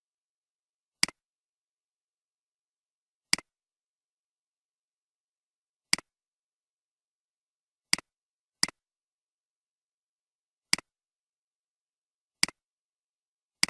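Computer mouse clicks: about eight single, sharp clicks at uneven intervals, with dead silence between them.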